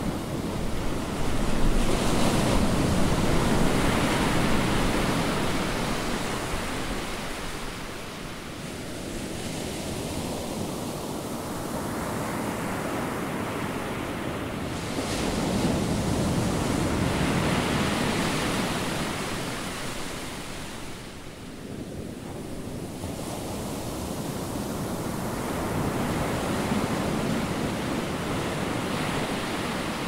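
Ocean surf: waves breaking on a beach and washing back in a steady rush. It swells three times, the first and loudest a couple of seconds in.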